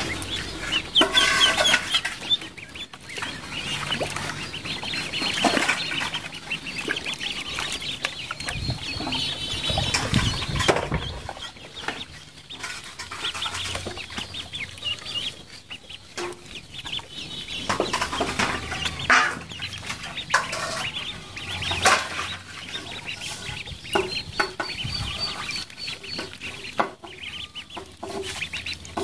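A brood of ducklings peeping continuously, with splashing and wing-flapping as they land in and swim about a tub of water.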